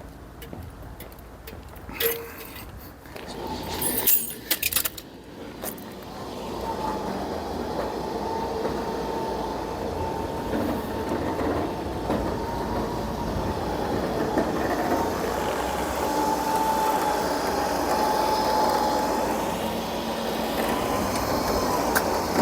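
Sharp metallic clanks and rattles of recovery-truck gear, then a steady mechanical drone with a whining tone as the truck's loading gear pulls the car up onto its bed.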